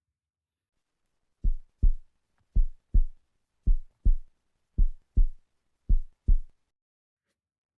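Heartbeat sound effect: five low double thumps (lub-dub), about one every 1.1 seconds, starting about a second and a half in and stopping near the end.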